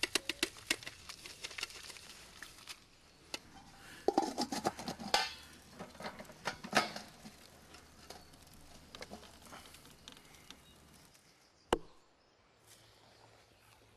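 Damp wood ashes tipped into a metal cooking pot of water, a quick patter of small clicks and clinks. Then the pot and its metal lid clank and ring as the lid goes on. Near the end comes a single sharp knock, an axe biting into a log.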